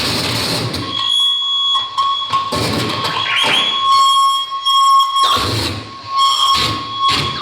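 Live harsh-noise electronic music. A dense wall of noise gives way about a second in to a shrill, steady electronic tone, which is broken several times by short blasts of noise that cut in and out abruptly.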